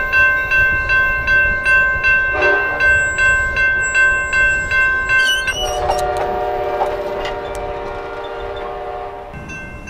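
Train horn sounding a steady multi-note chord over a bell ringing rapidly and evenly. About five and a half seconds in, the horn chord gives way to a lower-pitched horn chord that sounds for a few seconds and then fades.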